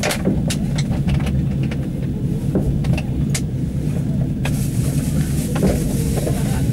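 Express passenger train running along the track, heard from inside the carriage: a steady low rumble with occasional sharp clicks.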